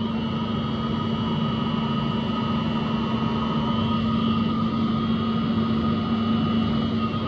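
Steady machine hum with constant whining tones above it, as of a motor or cooling fans running without change.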